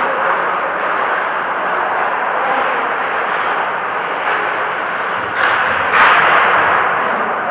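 Steady rushing noise of a vehicle in motion, swelling louder about six seconds in.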